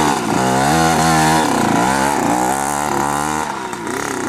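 Small youth dirt bike engine revved hard, its pitch dropping and climbing again several times as the throttle is worked.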